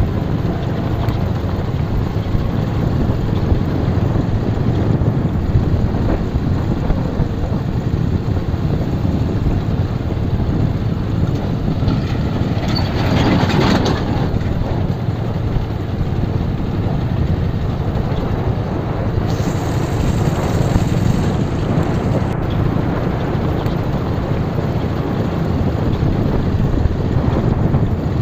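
Motorcycle ridden over a rough dirt road: steady engine and road noise mixed with wind rumble on the microphone, swelling louder about halfway through.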